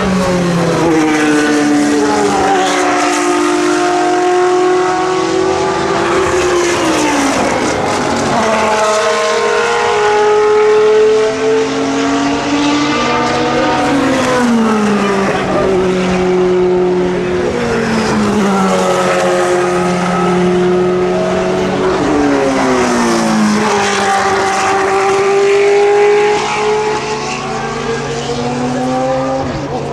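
Racing car engines at high revs, their pitch climbing and then dropping sharply at each upshift, several cars overlapping as they run past. A steady low hum sits underneath.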